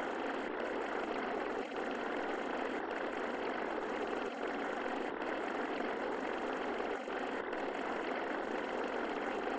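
Steady rushing noise with no distinct tone, strongest in the middle range, broken by short dropouts every second or two.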